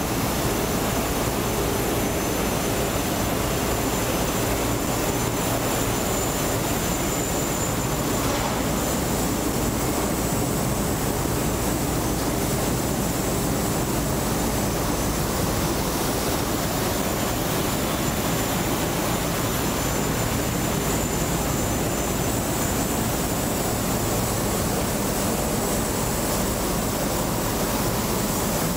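Steady jet-turbine noise on an airport apron: a constant low rumble with a high, unchanging whine over it.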